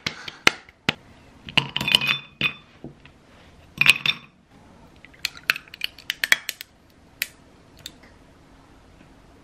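Sharp metal and glass clinks: a wire whisk tapping against a stainless steel mixing bowl, then ice cubes clinking into a glass tumbler, with a run of small clinks that thins out near the end.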